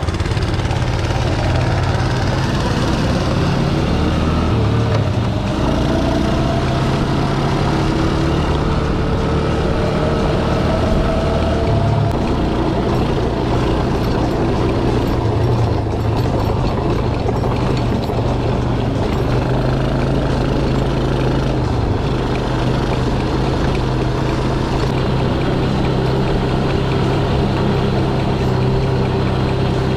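Small single-cylinder motorcycle engine running under way, heard close up from the rider's seat, with a steady hum whose pitch shifts a few times as the throttle changes.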